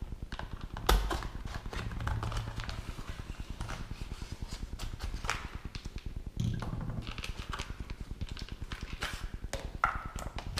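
Clicks, taps and knocks from a small LED light and its box being opened and handled, with a louder thump about a second in and another around six and a half seconds in.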